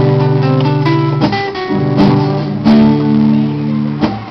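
Two acoustic guitars playing together, one strumming chords while the other picks a lead line over them, the notes ringing on between plucks.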